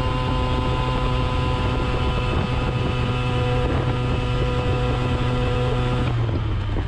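Simson S51 moped's stock 50 cc single-cylinder two-stroke engine, running through a welded twin header and two exhausts, held flat out at about 65 km/h, with wind on the microphone. About six seconds in, the steady engine note drops slightly and its higher tones fall away as the throttle is rolled off.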